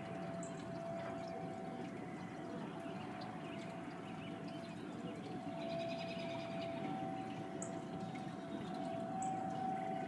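Outdoor tornado warning siren sounding a steady two-tone wail from a distance, swelling slightly in level, over a low steady hiss. A few short high chirps are scattered through it.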